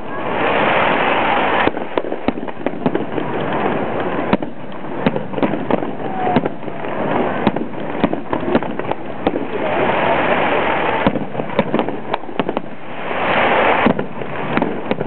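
Aerial fireworks display: a rapid, irregular string of sharp bangs from bursting shells, with a few one- to two-second rushes of hiss among them.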